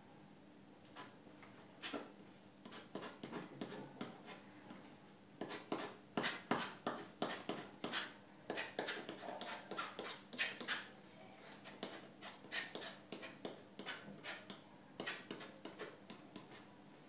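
Palette knife scraping and dabbing paint onto a stretched canvas in quick, short, scratchy strokes that come in runs from about a second in until near the end.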